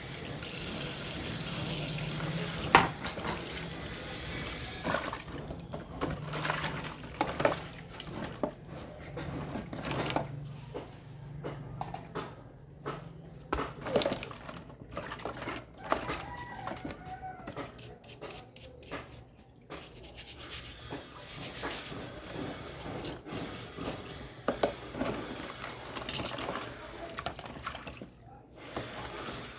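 Water running from a tap for the first few seconds, then scattered clicks and knocks.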